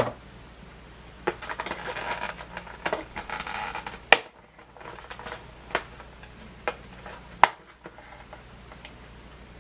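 Packaging being handled: rustling and crinkling for a few seconds, then a few separate sharp clicks and taps as small toy blasters are picked up and set down.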